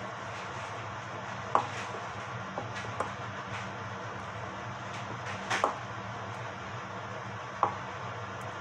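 A spatula stirring batter in a ceramic bowl, with about six sharp knocks of the spatula against the bowl spread through the stirring, over a steady low hum.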